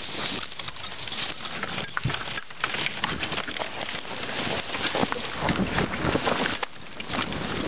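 Branches and brush scraping and snapping against a moving dog sled, many sharp cracks over a steady hiss of the sled running through snow.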